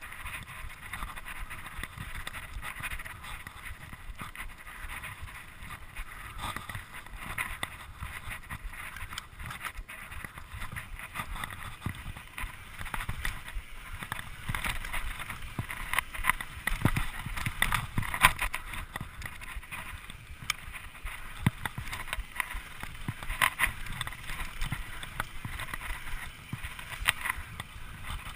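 Mountain bike riding fast on a dirt singletrack trail: a steady rush of tyre and trail noise with frequent knocks and rattles from the bike over bumps, and wind on the microphone.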